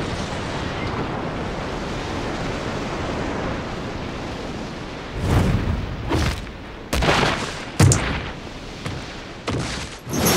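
Animated battle sound effects: a steady rushing rumble for about five seconds, then a string of sharp, heavy impacts about once a second.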